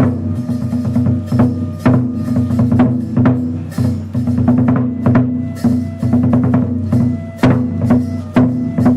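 Kagura music accompanying a sacred shrine dance: sharp percussion strikes about twice a second over steady, sustained low notes.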